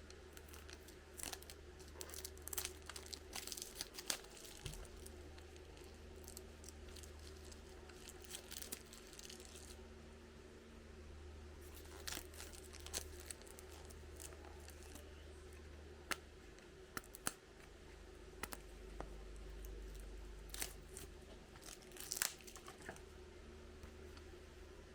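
Faint handling sounds: scattered bursts of crinkling and tearing with small clicks and taps, over a steady low hum.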